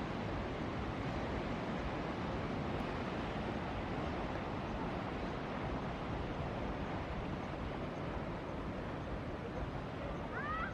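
Steady rush of ocean surf mixed with wind noise on the microphone. A brief high sliding sound cuts in just before the end.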